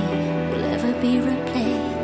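Slow music with long held notes.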